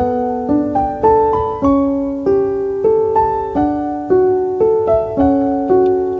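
Background piano music: a gentle melody of evenly spaced notes, about two a second, each ringing and fading.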